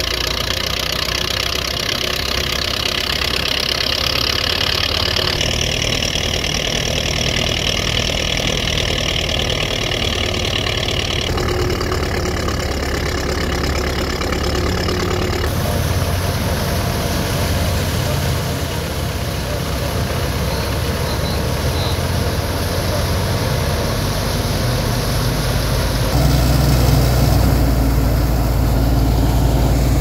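Belarus tractor's diesel engine running steadily under load as it powers a wheat thresher that is being fed with sheaves. The drone shifts abruptly a few times.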